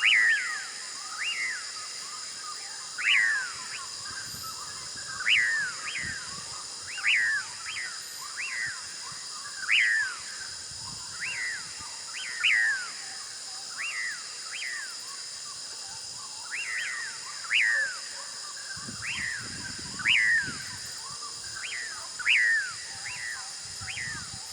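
A bird calling over and over, each call a quick downward-sweeping note, often in twos, about every second or two, over a steady high-pitched hiss.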